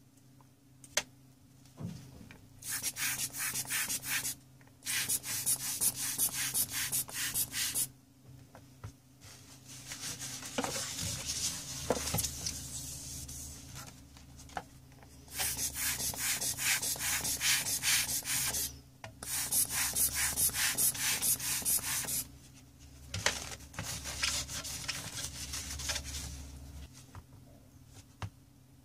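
Fast, repeated rubbing strokes scrubbing flux off a graphics card's circuit board. They come in runs of a few seconds with short pauses between them.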